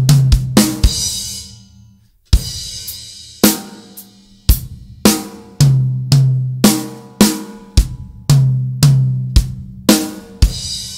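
Acoustic drum kit with Paiste PST 8 cymbals played alone: a few quick strikes with ringing toms, about a second's pause, then a hit with a long cymbal ring and a steady run of single strikes about two a second, some with ringing toms.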